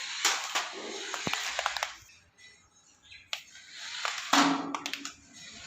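Toy remote-control car driving in two short runs, its small electric motor whirring and wheels rolling on the floor, with a few sharp clicks; a pause of near silence between the runs.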